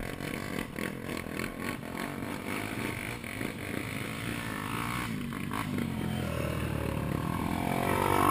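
Dirt-bike engine running at low revs: the single-cylinder four-stroke of a Honda XR 250 Tornado. A second dirt bike's engine grows louder near the end as it pulls up alongside.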